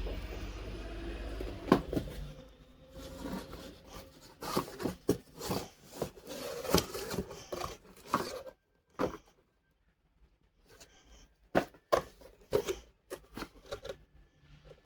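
Irregular sharp clicks, knocks and rustles of objects being handled, most likely during unboxing. A low steady hum stops about two seconds in.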